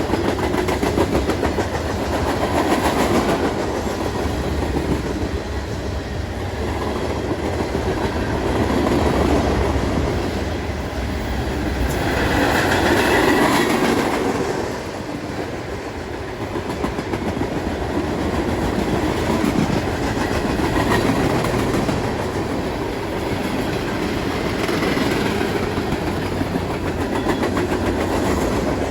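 Train cars rolling past, with steady wheel rumble and clickety-clack over the rail joints that swells and eases in waves.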